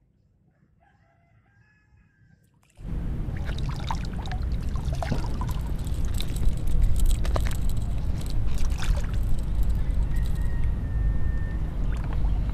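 A rooster crowing faintly. About three seconds in, a heavy low rumble begins abruptly, with water splashing and dripping as a hooked tilapia is lifted out of the water.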